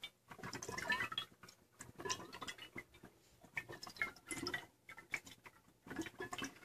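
Jägermeister draining from upturned bottles into a tap machine's reservoir, with air bubbling up through the bottles. It comes as soft, irregular gurgles, drips and small glugs.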